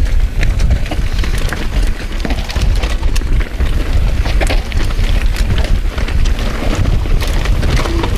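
Mountain bike descending a dirt trail at speed: wind buffeting the chest-mounted microphone as a heavy rumble, with tyres rolling over dirt and roots and frequent clicks and rattles from the bike.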